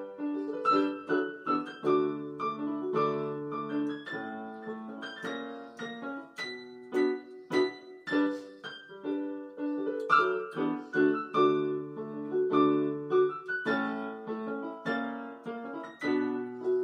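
Electronic keyboard played four-handed with a piano sound: struck chords and melody notes in a steady, continuous run.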